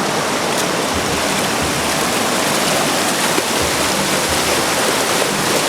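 Fast mountain river water rushing in a steady, loud, unbroken flow.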